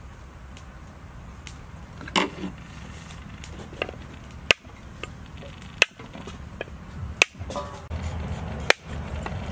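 Whole coconut shell struck with a long knife blade over a steel bowl: five sharp cracking knocks about a second and a half apart, the usual way of splitting a coconut open.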